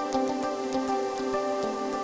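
Intro music: sustained chords with a light, quick ticking beat over them.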